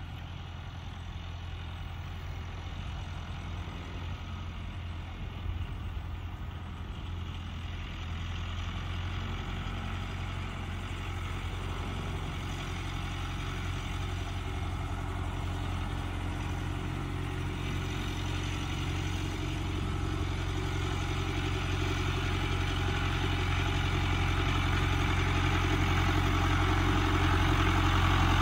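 Case David Brown 990 tractor's three-cylinder diesel engine running steadily as the tractor drives closer, growing steadily louder.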